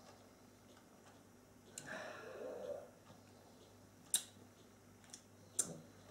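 Faint mouth sounds of a person tasting whisky: a soft breathy exhale about two seconds in, then three short, sharp lip smacks or tongue clicks near the end.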